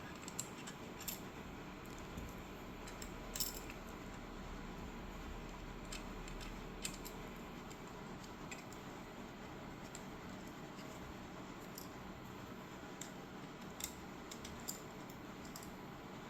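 Small metal washers and nuts clinking as they are handled and fitted, a handful of faint, irregularly spaced clicks over a steady low hiss.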